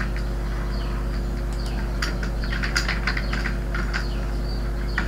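Computer keyboard being typed on: irregular short runs of key clicks, over a steady low hum.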